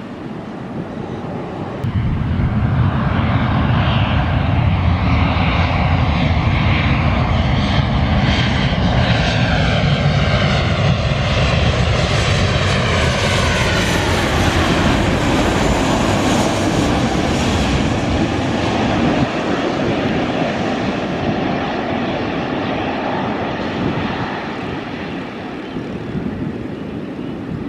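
A passenger airliner's engines passing close by: the engine noise swells sharply about two seconds in, with whining tones that slide down in pitch as the aircraft goes past, then slowly fades.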